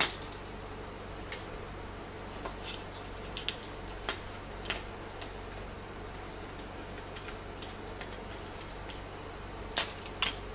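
Small plastic clicks, scrapes and taps as the handle casing of a FeiyuTech AK2000C gimbal is pried apart with a metal pick and its cover and switch board are set down on a tabletop. A sharp click right at the start and two more near the end stand out over a faint steady hum.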